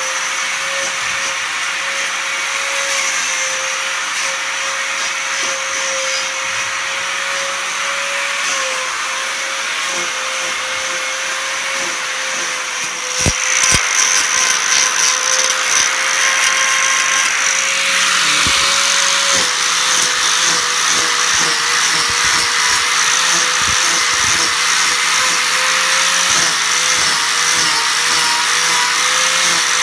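Electric angle grinder running steadily with a high motor whine as it grinds down a dairy cow's hoof horn during trimming. About halfway through it bites harder into the hoof and gets louder and rougher, its pitch sagging briefly under the load.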